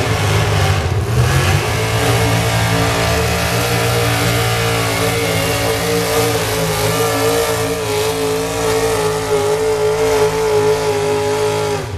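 Pulling pickup truck's engine running flat out under heavy load as it drags a weight-transfer sled down the track. The engine pitch holds high and steady, sagging slightly over the last few seconds.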